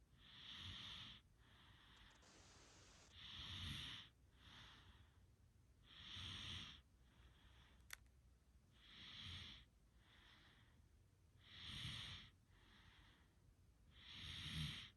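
Someone asleep and snoring softly, in slow, regular breaths about one every three seconds, each louder swell about a second long with a weaker breath between.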